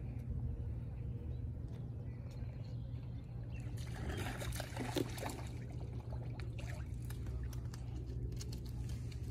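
A trout splashing as it breaks the lake surface, a short burst of splashing water about four to five seconds in, over a steady low rumble.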